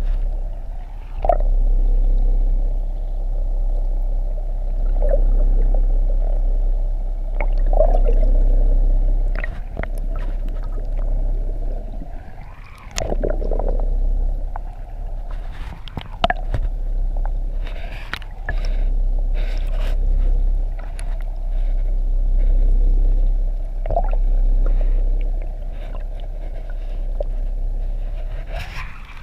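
Muffled underwater sound through a submerged camera: a steady low rumble, with scattered clicks and knocks throughout.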